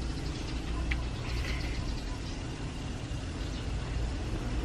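Steady low background rumble, like a motor running, with a few faint clicks.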